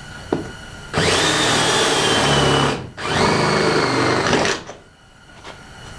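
Power drill with a 7/16-inch bit boring holes through a Jeep's metal hood, in two runs of about two seconds and a second and a half with a brief pause between. Its whine sags slightly in pitch as the bit bites into the sheet metal.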